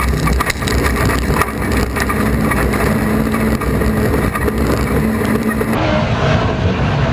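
Engine of a Class 4 autograss racing car running hard, heard from inside the car, with many rattles and knocks from the car's shell. About six seconds in the sound changes to racing car engines heard from the trackside.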